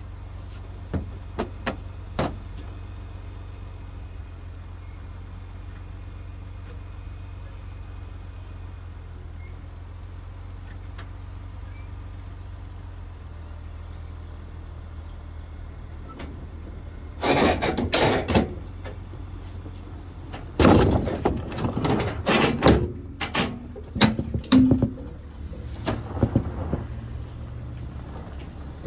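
An engine idling as a steady low hum, with a few light clicks near the start. About two-thirds in come loud bursts of heavy tow chain clanking and rattling on the trailer's wooden deck as the chain is pulled taut.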